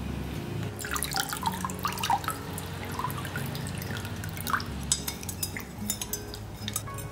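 Water splashing and dripping, with a run of drop-like plinks from about a second in and sharper clicks and taps later on.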